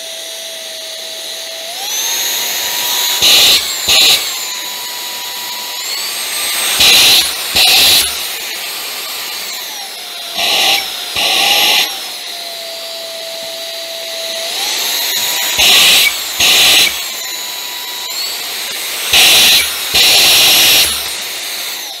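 UMLo S9 cordless stick vacuum's motor running, its whine stepping up and down in pitch as the suction setting is changed, up to its highest power. Short loud rushes of air come in pairs several times. The motor winds down at the very end as it is switched off.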